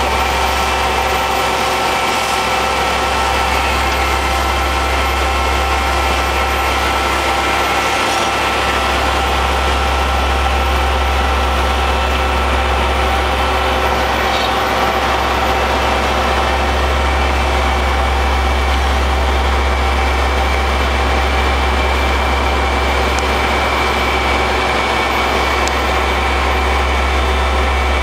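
Heavy diesel engine running steadily: a constant drone with a deep low rumble and a few steady whining tones.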